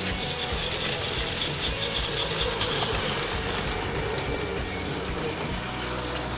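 Battery-powered Plarail toy train running on plastic track: a small motor and gearbox whirring steadily, with fast clicking and rattling of the wheels over the track.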